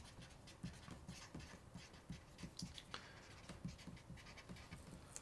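Faint strokes of a marker writing on paper, a string of short scratches and light ticks.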